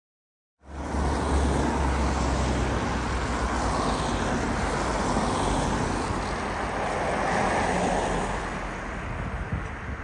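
Road traffic passing at a street crossing, cars running by, with wind buffeting the microphone in a low rumble. It starts abruptly about half a second in.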